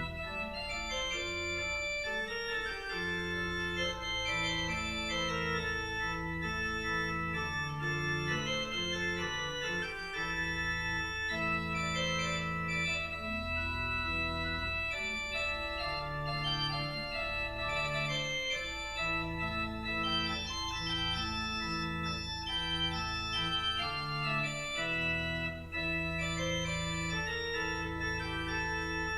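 Church organ playing a postlude: full held chords over deep sustained bass notes, moving from chord to chord every second or two.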